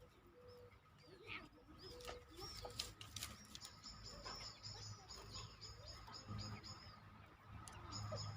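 Songbird (the 'Maestro' bird) singing faintly: scattered high chirps, then from about three and a half seconds in a fast trill of evenly repeated high notes, about four a second. The trill breaks off briefly near the end and starts again.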